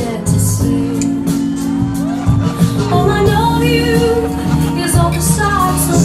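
Music with a voice singing over a bass line and a regular beat.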